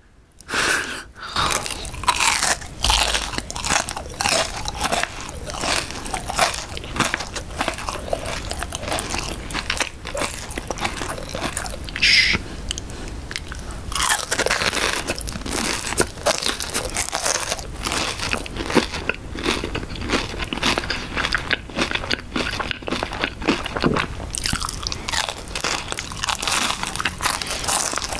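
Close-miked biting and chewing of a crisp-crusted McDonald's raspberry cream cheese pie: a dense run of crackly crunches from the fried pastry shell with wet chewing in between.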